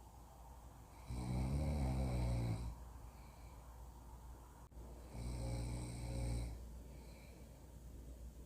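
Snoring: two long snores about four seconds apart, with softer breaths in between.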